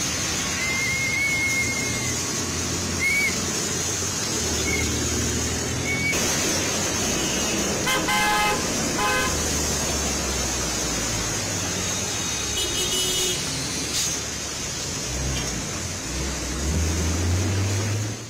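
Road traffic on flooded roads in heavy rain: a steady wet hiss over engine rumble, with vehicle horns honking repeatedly. Several short toots come in the first few seconds, a longer honk about eight seconds in, and another around twelve seconds.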